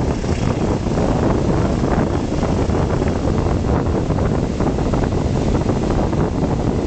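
Wind buffeting the microphone at an open train window, over the steady rumble of a passenger train running along the track.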